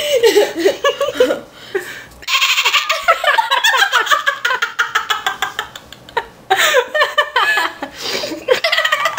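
A girl's vocal impression of a strange animal noise: a high, rapidly pulsing, wavering bleat like a goat or sheep, held in long stretches with short breaks for breath, mixed with giggling.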